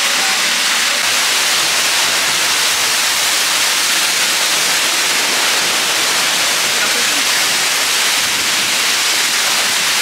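Seljalandsfoss waterfall's water crashing down close by: a loud, steady rushing hiss with no let-up.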